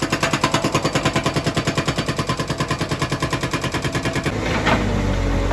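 Hydraulic breaker on a JCB backhoe loader hammering concrete, a rapid run of about a dozen blows a second. The hammering stops about four seconds in, leaving the machine's diesel engine running.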